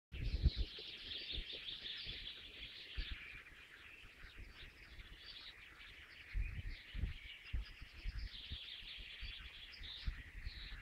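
Dense chorus of many birds chirping and calling over one another without pause. Low thumps sound on the microphone just after the start and again around the middle.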